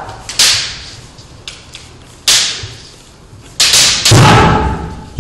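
Bamboo shinai strikes and stamping footwork on a wooden dojo floor during kendo sparring: sharp cracks and thuds that echo through the hall, one about half a second in, another around two seconds, and a heavier cluster from about three and a half seconds on.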